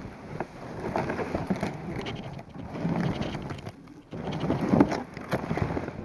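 Plastic sled towed over snow, hissing and scraping as it slides, with crunching footsteps in snow. The noise swells in surges about every two seconds.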